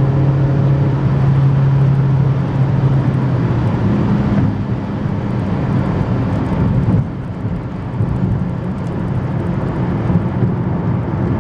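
Car engine and road noise heard from inside the cabin at highway speed: a steady engine drone that steps up in pitch about four seconds in, and the sound eases off a little about seven seconds in.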